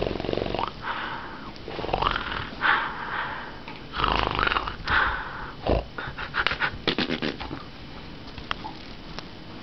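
A person making raspy growls and snorts at a corgi in a string of short, irregular bursts, some rising in pitch. After about six seconds these give way to a quick run of clicks.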